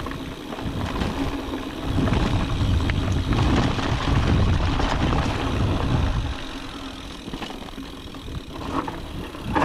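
Mountain bike rolling fast down a rough trail: the rumble and rush of tyres over the ground, heaviest from about two to six seconds in, then easing.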